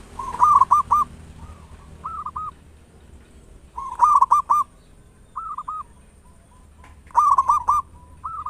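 Zebra dove (perkutut) cooing in short phrases of a few rolling notes. A louder phrase comes about every three seconds, with softer phrases in between.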